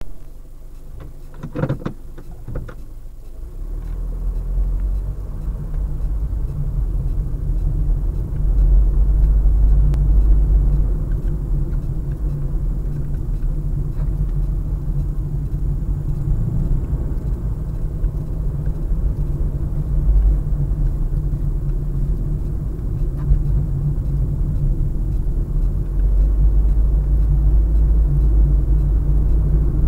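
Honda Fit driving, heard from inside the cabin as a steady low road-and-engine rumble that grows louder over the first several seconds as the car picks up speed. A few brief knocks sound about two seconds in.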